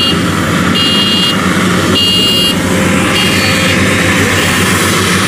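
WD115 Pro rice combine harvester's diesel engine running steadily while the machine's warning buzzer beeps about once every second and a quarter, the beeps growing fainter and dying away past the middle.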